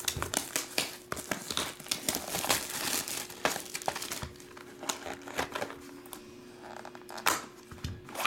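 Crinkling and rustling of a cardboard trading-card box being handled on a table, a busy run of small clicks and scrapes.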